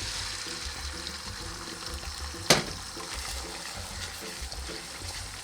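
Beaten eggs sizzling steadily in hot oil in a pan, with one sharp clack of a utensil against the pan about two and a half seconds in.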